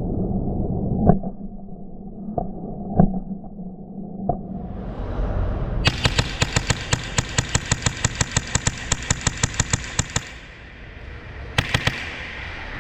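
Airsoft guns firing: a few single shots in the first four seconds, then a fast, even string of shots for about four seconds, with a short burst near the end.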